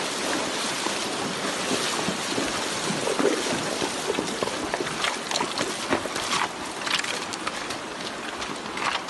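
Shallow rocky river rushing, with a mule's hooves splashing as it wades through the current. A few sharp clicks about five to seven seconds in.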